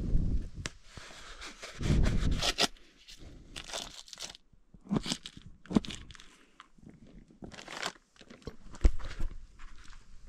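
Irregular crunching, crinkling and tearing handling noises in several short bouts, with a sharp knock near the end.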